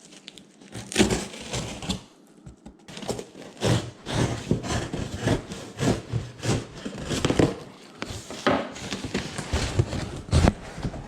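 Cardboard shipping box being torn and wrenched open by hand: a long run of irregular cracks, rips and crunches.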